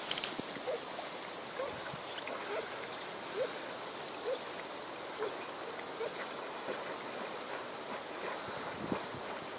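Steady rush of wind and outdoor noise on the microphone, with a faint short sound repeating about once a second.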